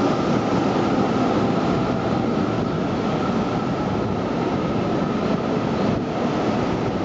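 Seibu 30000 series electric train running alongside the platform as it slows into the station: a steady rumble of wheels and running gear with a steady high tone above it.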